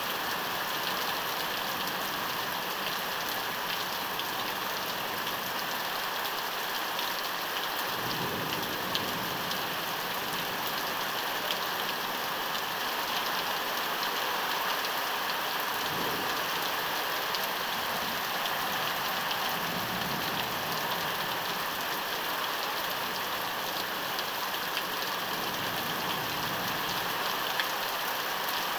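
Rain falling steadily in a thunderstorm, an even rush of rain noise.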